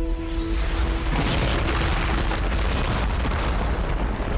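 Sound-effect blast of an asteroid striking the Moon: a deep, sustained rumble that swells about a second in, over held music notes that fade out.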